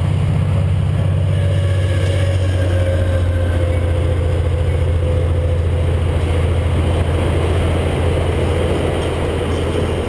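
Steady wind rush buffeting a bicycle-mounted camera's microphone while riding along a highway, mixed with road and traffic noise. A faint tone slowly falls in pitch through the first half.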